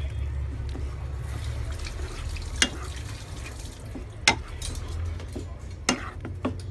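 Wooden spatula stirring a thick cream sauce in a wok, with a wet sloshing sound and a few sharp knocks of the spatula against the pan, over a steady low hum.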